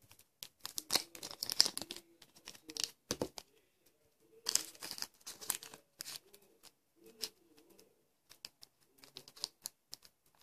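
Small plastic zipper bag crinkling and rustling as it is handled, in short bursts with light clicks and taps.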